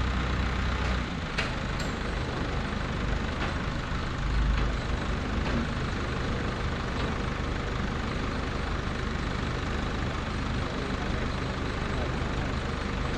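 Flatbed tow truck's engine idling steadily, with a couple of faint clicks about a second and a half in and a brief low rumble about four and a half seconds in.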